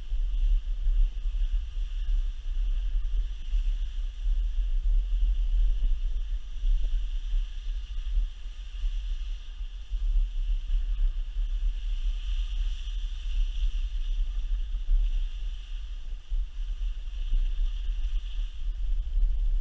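Wind buffeting an action-camera microphone while sliding fast down a groomed ski slope: a gusty low rumble with a steady high hiss over it.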